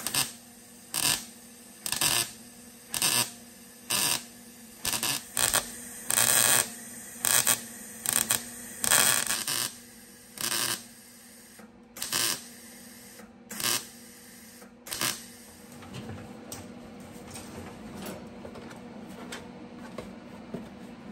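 Welder laying a series of short tack and stitch welds on a sheet-metal patch, about one burst a second for some fifteen seconds, then stopping, leaving a steady low hum. The welds are filling a gap between the patch panel and the body.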